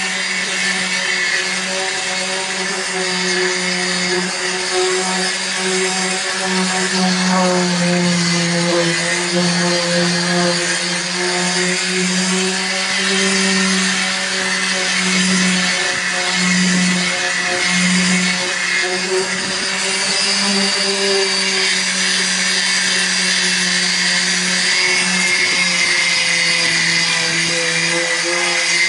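Handheld electric sander running continuously while sanding back the painted roof of a bus: a steady motor hum over a rasping hiss, its pitch wavering slightly now and then.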